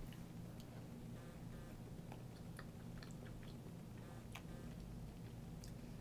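A toddler eating yogurt off a plastic spoon: small wet mouth sounds and soft, scattered clicks, over a steady low hum.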